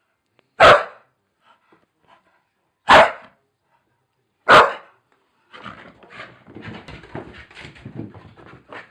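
Staffordshire bull terrier barking three times, loud and sharp, a couple of seconds apart, then a few seconds of quieter, ragged, lower noise.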